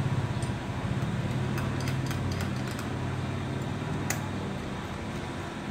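Light metallic clicks of a steel hex key on the stainless steel bolts and plate as the four flange bolts are undone, over a steady low hum.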